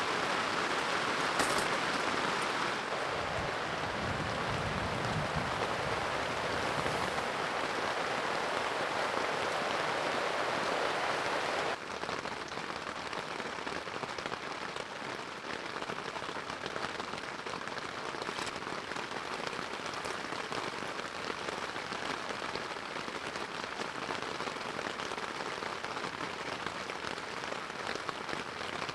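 Rain falling steadily, a dense hiss of drops on a surface; the level drops suddenly about twelve seconds in, then carries on softer.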